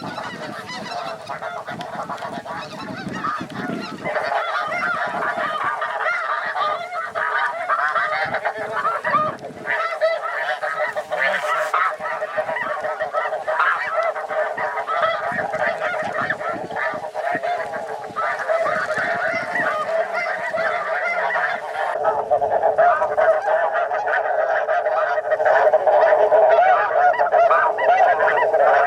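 A huge flock of snow geese calling all at once, a dense unbroken chorus of overlapping honks that grows louder over the last several seconds.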